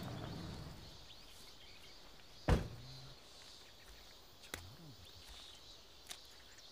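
Quiet rural outdoor ambience with faint birdsong. A single sharp knock about two and a half seconds in, then a couple of fainter clicks later on.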